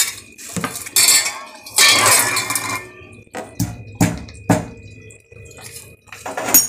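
Stainless-steel bowls and plates clattering on a kitchen counter as they are moved about: a couple of scraping stretches in the first few seconds, then several sharp knocks, the loudest near the end.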